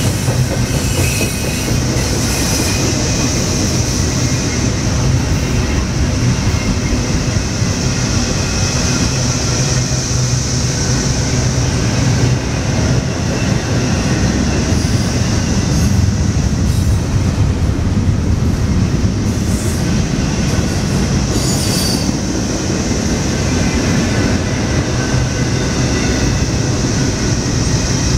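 Double-stack container train rolling past close by: a steady, loud rumble of wheels and well cars on the rail, with a continuous high-pitched wheel squeal over it.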